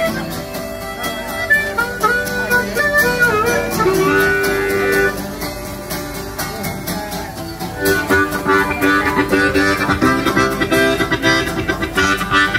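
Acoustic guitar strummed in a lively, steady rhythm with a harmonica playing the melody over it; the harmonica grows fuller and brighter about eight seconds in.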